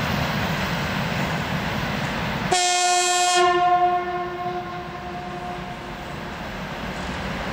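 2TE25KM diesel locomotive sounding its horn once on approach: a single steady blast of about a second and a half, starting about two and a half seconds in and dying away over the next two seconds, over a steady low rumble.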